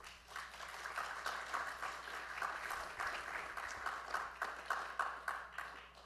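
Audience applauding: many hands clapping, building quickly and fading away near the end.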